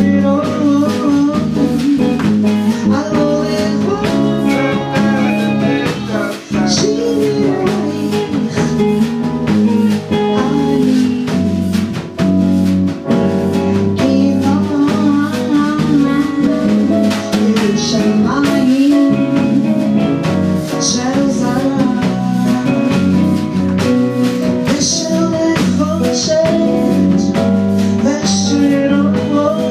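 Live band rehearsing: a woman sings into a microphone over a drum kit and guitar, with cymbal crashes now and then.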